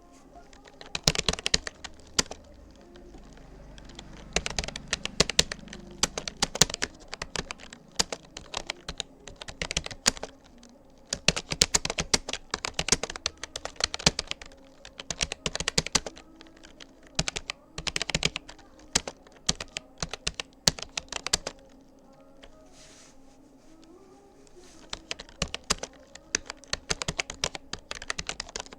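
Touch typing on a Rapoo computer keyboard: fast, irregular runs of key clicks in bursts, with short breaks and one lull of a few seconds about two-thirds of the way through.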